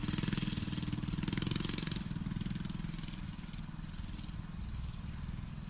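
Harbor Freight Predator 212cc single-cylinder four-stroke engine on a motorized mountain bike, running with a steady rapid firing beat that gradually gets quieter.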